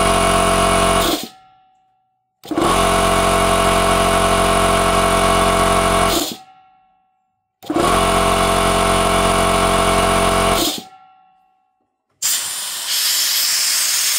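Brandless portable air compressor's motor and pump running, cutting out about a second in, then starting suddenly and running for about four and three seconds in two more short runs, each stop winding down over about a second. These are start-stop cycles to check whether its motor circuit breaker trips again. Near the end, compressed air hisses out steadily.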